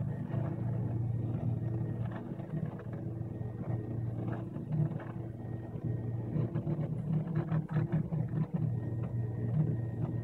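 3D printer running a print: its stepper motors hum and whine in quick, changing pitches as the print head moves, over a steady low hum.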